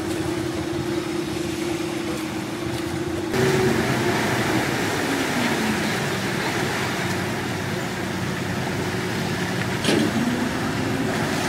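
Engines running steadily with a low, even hum. About three seconds in the sound changes abruptly, and after that engine tones slowly fall in pitch, as when a motor passes by.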